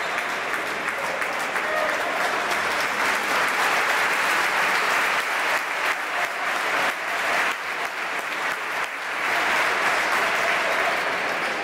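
Arena crowd applauding steadily, dipping briefly about eight seconds in and swelling again after.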